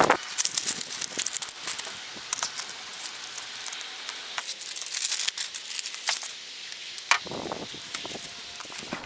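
Paper sheets crinkling and painter's tape being pulled and pressed down while the headlight surround is masked off: irregular crackles and short rasps, with a fuller rasp about seven seconds in.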